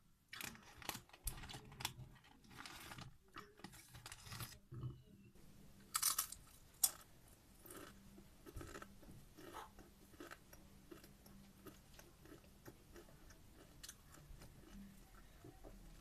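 Close-miked chewing of crunchy Doritos tortilla chips: a run of crisp crunches and crackles, the loudest about six to seven seconds in.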